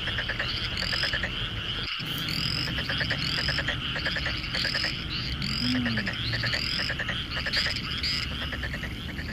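A chorus of frogs calling: many overlapping short chirps and rapid pulsed trills repeating steadily, with a brief dropout about two seconds in.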